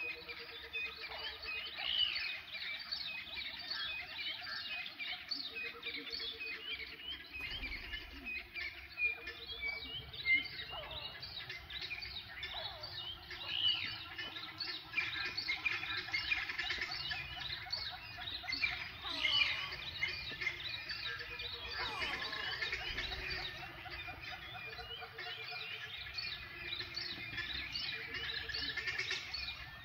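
A dense chorus of many wild birds chirping and calling over one another. A lower pulsed call repeats in short runs every few seconds underneath.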